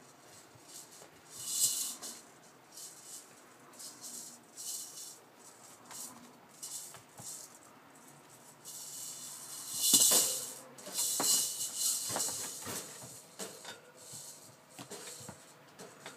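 Rough collie puppies scrabbling and tussling on the sheet-covered floor of their pen: irregular scratchy rustling bursts, loudest about ten seconds in, with a few light knocks.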